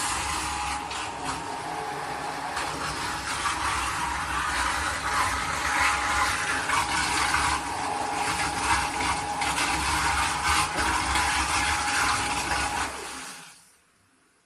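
Electric agitator of a stainless steel mixing tank running, a steady whine over a rushing noise; it dies away near the end.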